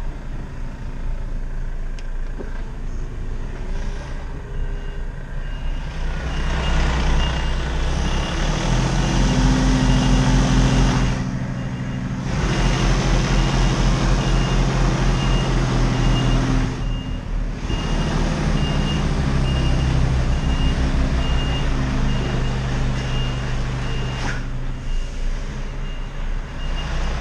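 Truck reversing with its diesel engine running. The engine's revs rise about eight seconds in and dip briefly twice. A backup alarm beeps at an even pace from about six seconds in until shortly before the end.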